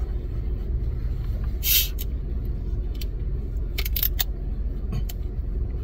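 A plastic bottle of cola is twisted open with a short fizzing hiss about two seconds in, followed by a few light clicks of the bottle. A steady low rumble from the car runs underneath.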